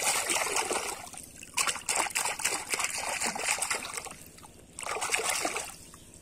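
Water splashing and sloshing as a plastic toy is swished and rubbed by hand in shallow water, in three bouts with short pauses between.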